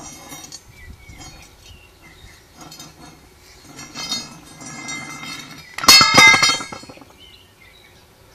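A long metal rod scraping and clinking against the ground and the wall, with a loud rattling scrape about six seconds in.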